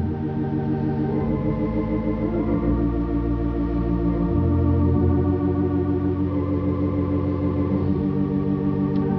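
Organ playing soft sustained chords under a prayer, the bass note shifting about a second in, again around four and a half seconds, and near the end.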